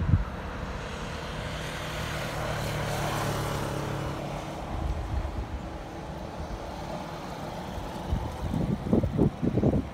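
A motor vehicle passes with a steady engine hum that swells to a peak about three seconds in and then fades. Wind buffets the microphone in gusts near the end.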